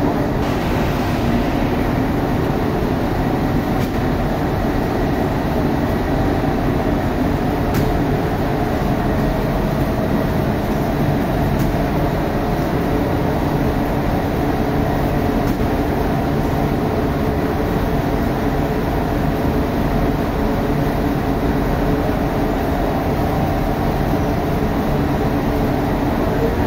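Bakery machinery running: a steady, unbroken hum and rush with a few constant tones in it.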